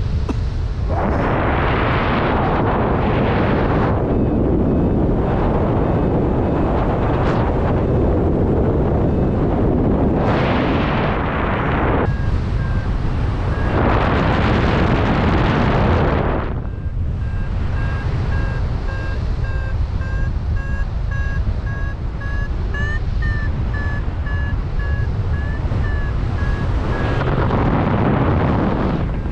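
Wind buffeting the microphone in heavy gusts. From about halfway through, a paragliding variometer beeps in short, rapid pulses, its pitch stepping up for a moment a little later, as the vario does when the glider is climbing.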